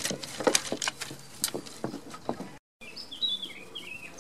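Dry sticks and twigs cracking and snapping under a goat's hooves as it steps over a pile of brush. After a brief dropout about two and a half seconds in, a small bird chirps a quick run of short, high notes.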